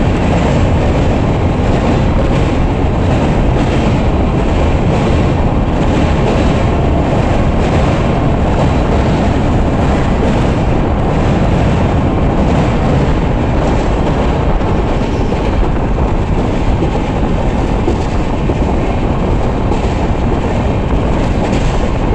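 Express passenger train running at speed, heard from the open coach door: a loud, steady rumble of wheels on rail with a light, irregular clatter of wheels over rail joints. The train is crossing a steel truss bridge.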